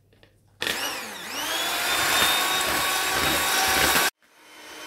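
Electric hand mixer whipping heavy cream into whipped cream, its motor running at speed with a high whine. It starts suddenly about half a second in, cuts off abruptly about four seconds in, then runs again more quietly near the end.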